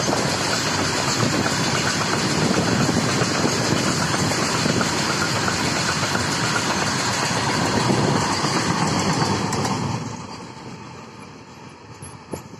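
Loaded freight wagons rolling past on the rails, a steady heavy rumble and clatter of wheels on track, which falls away sharply near the end.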